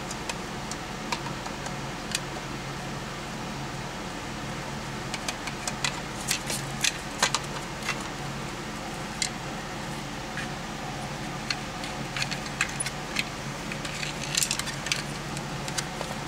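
Light metallic clicks and clinks of hand tools and small metal parts being handled, coming in irregular clusters, over a steady low hum.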